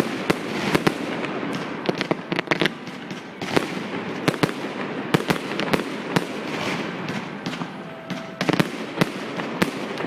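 Fireworks going off: sharp bangs at irregular intervals, sometimes several a second, over a continuous crackle.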